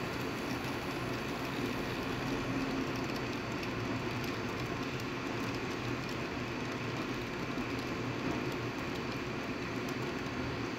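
HO-scale model freight train rolling past on its track: a steady mechanical hum of the running train and the wheels of the hopper wagons, with faint light clicks.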